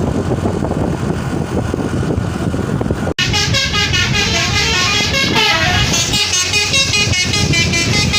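Bus engine and road noise at first; about three seconds in, after a sudden break, a bus's multi-tone telolet horn plays a fast melody of short stepping notes.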